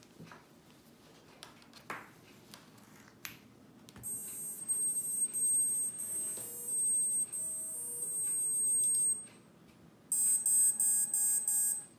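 Electronic beep tones played through a 2207 1950 KV brushless drone motor by its ESC. About four seconds in, a series of steady tones that step in pitch sounds for about five seconds. About ten seconds in comes a quick run of short, evenly spaced beeps.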